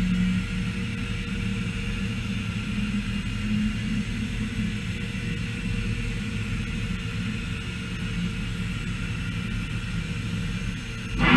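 Steady machine hum with several constant tones, low, middle and high, from a Starrag Heckert CWK 500 horizontal machining centre running. A louder sound starts just before the end.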